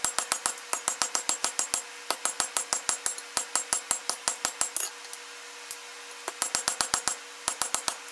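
Hand hammer striking a red-hot rod on a steel anvil. Quick ringing blows come about six a second, in runs broken by short pauses about five seconds and six to seven seconds in.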